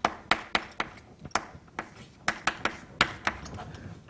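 Chalk writing on a blackboard: a quick string of sharp, uneven taps as the chalk strikes the board with each stroke, stopping shortly before the end.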